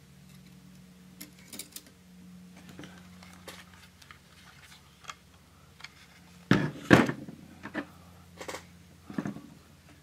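Handling noise from the open metal chassis of a Tektronix 177 curve-tracer test fixture being turned and worked on by hand: scattered light clicks and taps, with two louder knocks close together about two thirds of the way through, over a faint steady hum.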